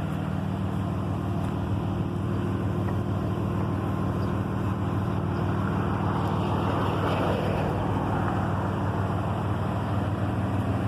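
Dodge car's engine idling steadily through its Flowmaster 44 Delta exhaust, running on remote start. A light rush of noise swells over it about six seconds in.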